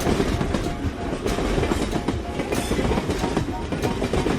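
Train running along the track, its wheels clicking and clattering over the rail joints.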